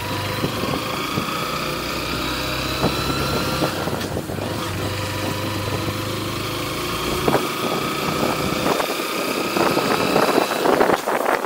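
Motorcycle engine running as the bike rides along at low speed, with a short break in the engine note about four seconds in. In the last few seconds the engine fades under rough wind noise on the microphone.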